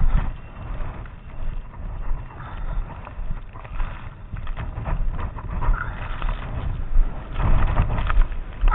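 Wind buffeting the microphone in a snowstorm: a gusty low rumble that swells and drops irregularly, with scattered short knocks, heaviest in the last couple of seconds.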